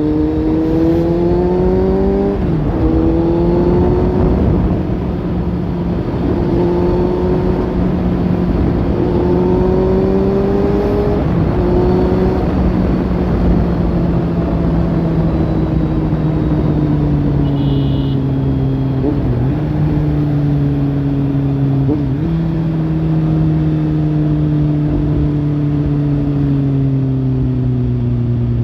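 Kawasaki Z800 inline-four running through a Lextek slip-on exhaust under way. The engine note climbs and drops sharply a few times in the first twelve seconds, as on gear changes. It then holds and slowly falls as the bike eases off.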